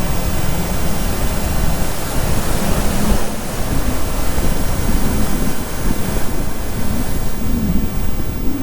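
Sea waves washing onto a sandy beach in a steady rush, with wind buffeting the microphone. A low, wavering drone sits underneath.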